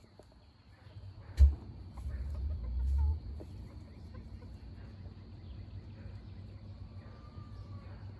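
Chickens clucking softly now and then, with one sharp knock about a second and a half in and a brief low rumble just after.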